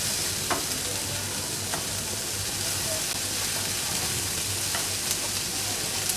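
Onion sizzling steadily as it fries in oil in a pan, stirred with a spatula that clicks against the pan a few times.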